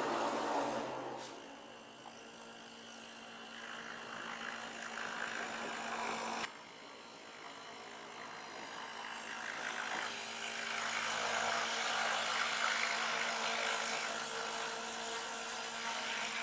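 Electric RC scale Bell 222 model helicopter in flight: a steady motor whine over the rush of the rotor blades. The sound drops off suddenly about six seconds in and swells again as the model flies closer.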